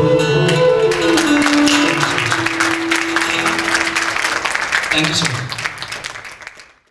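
A male singer's last held note with instrumental accompaniment, ending the song; from about a second in, audience applause breaks out over a sustained instrument note, and it fades out near the end.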